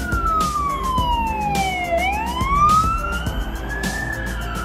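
Police siren in wail mode: one slow tone that falls for about two seconds, climbs again for about two seconds, then starts to fall, over a steady low rumble.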